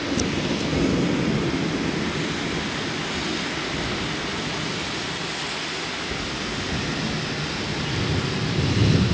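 Thunder rumbling: a deep roll that starts suddenly, carries on and swells again near the end, over a steady hiss.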